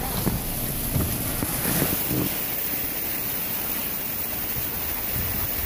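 A vehicle driving through floodwater over a paved road, its wheels throwing up spray: a steady rushing wash of water.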